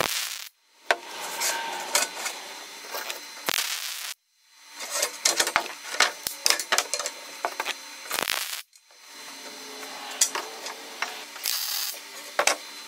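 A brief crackle of a welding tack on a steel frame, then thin wooden strips clattering, knocking and rubbing against the steel angle-iron frame as they are fitted in, in short stretches that cut off abruptly a few times.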